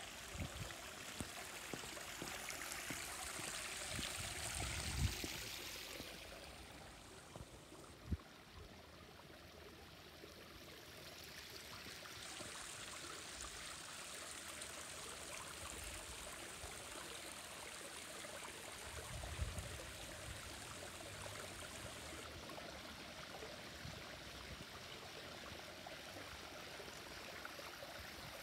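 Steady rush of running water from a backyard swimming pool's water feature. It is louder for the first few seconds, dips for a while after, then holds steady, with a few short low bumps on the microphone.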